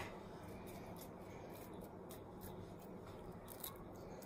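Diced raw onion being spread by hand over a flat tray: faint rubbing with a scatter of small ticks as the pieces are pushed about, one a little louder near the end.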